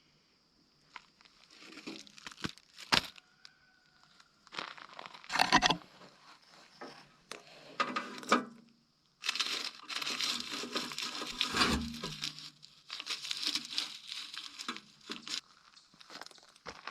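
Packaging being crinkled and torn by hand, in irregular bursts with a few sharp snaps, busiest in the second half.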